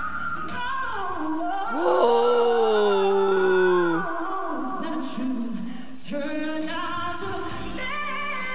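Female singer performing live with band backing: a loud held note about two seconds in that slides slowly downward and stops about four seconds in, then further sung phrases over sustained backing chords.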